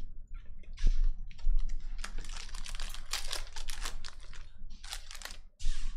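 Hands ripping open a foil 2020-21 Donruss Optic Basketball hobby pack and handling the cards: a fast run of crinkles, crackles and rustles.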